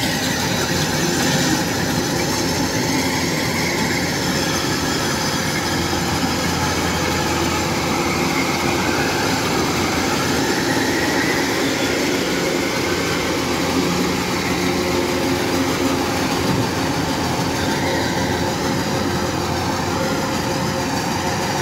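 Kubota DC-105X tracked combine harvester running steadily as it cuts rice, its diesel engine and machinery giving a continuous even drone.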